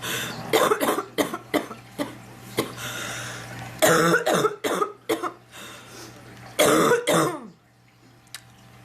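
A sick woman coughing in three bouts: a run of short coughs at the start, another about four seconds in and a last one about seven seconds in, after which it goes quieter.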